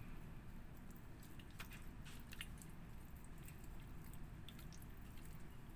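Hands handling a raw whole chicken: faint wet squishing of the skin and scattered small sticky clicks as it is gripped and stood upright on a wooden board.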